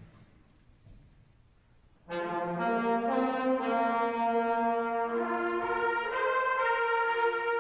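A quiet hall for about two seconds, then a concert band comes in together with loud, held chords led by the brass, trombones, trumpets and horns, the harmony shifting every second or so.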